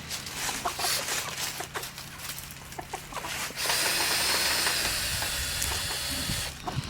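Free-range chickens clucking softly while scratching and pecking on the ground, with many small scuffs and clicks. About three and a half seconds in, a steady hiss comes up and runs for about three seconds before cutting off.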